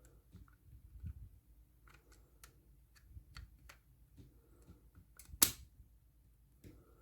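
Light clicks and taps of small objects being handled, scattered and faint, with one sharper click about five and a half seconds in.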